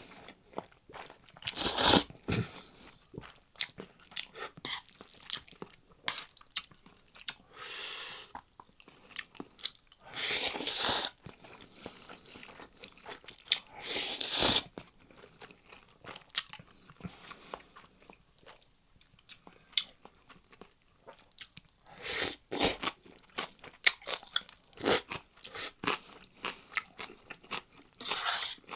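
Close-miked eating: Chapagetti noodles and green onion kimchi being bitten and chewed, with many small crunching and wet mouth clicks. About six louder bursts, each roughly a second long, stand out.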